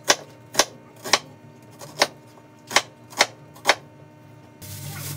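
Seven sharp taps or knocks at uneven intervals, about half a second to a second apart. A steady hiss starts near the end.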